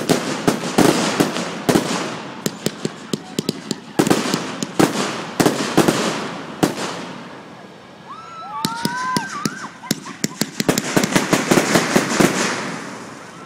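Fireworks display: aerial shells bursting in waves of dense crackling, many sharp pops and bangs in rapid clusters. The crackling eases briefly a little past the middle, then builds again.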